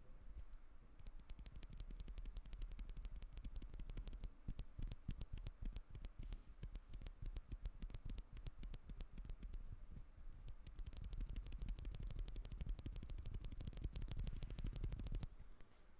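Mechanical keyboard with tactile switches being typed on quickly and continuously, a dense run of key clicks and clacks. The typing pauses briefly a few seconds in, then picks up again and stops shortly before the end.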